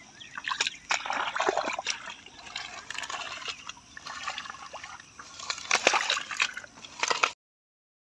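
Bare hands sloshing and squelching through wet mud and shallow water, with irregular small splashes and gurgles. The sound cuts off suddenly near the end.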